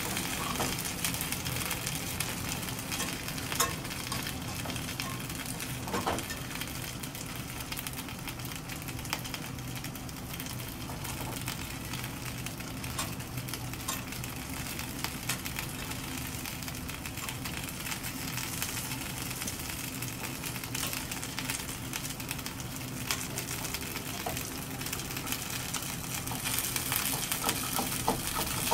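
Gyoza frying in a pan with a steady sizzle. A few clicks and scrapes come from a spatula against the pan as the dumplings are lifted.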